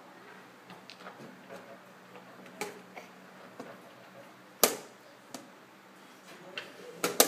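Sharp wooden clicks and knocks, uneven in time, from chess pieces being set down on a wooden board and the chess clock being pressed during a rapid game; the loudest comes about halfway through, with a quick cluster near the end.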